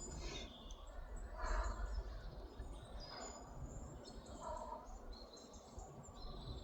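Faint outdoor ambience: scattered short bird chirps over a steady low rumble.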